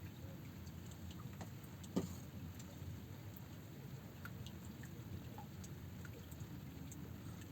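Rain falling and dripping in scattered faint ticks over a steady low rumble, with one sharp knock about two seconds in.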